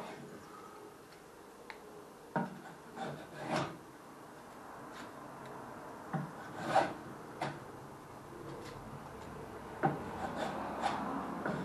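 Hand tool scraping and shaving a small piece of wood in irregular strokes, a low rasping hiss with a few sharper strokes; the loudest comes about seven seconds in.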